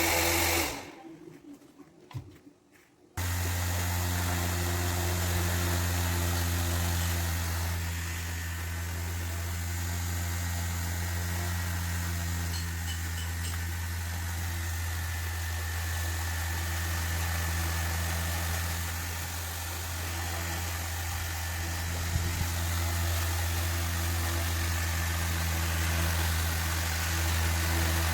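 Small high-speed DC motor spinning a toy helicopter's rotor, a steady hum with a whirring haze above it. The sound drops out for about two seconds near the start, then runs on unchanged.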